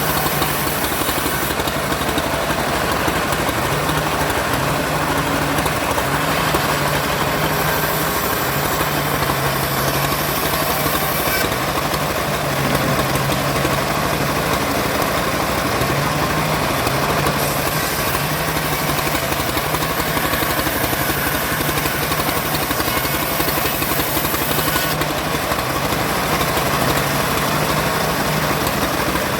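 An engine running steadily, its low note shifting up and down every second or two as the load changes, with a constant mechanical rattle and hiss of machinery at work.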